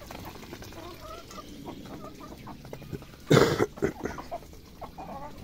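Chickens clucking with short, scattered calls, and one brief loud noise a little over three seconds in.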